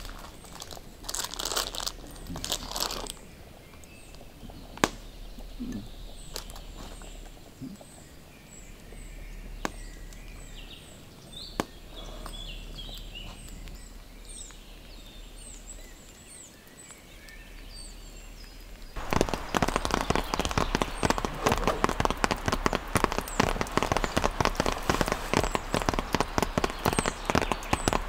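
Birds chirping, with a few crunching footsteps near the start and three isolated sharp clicks. About two-thirds of the way through, heavy rain suddenly begins, a loud, dense patter of drops hitting a surface.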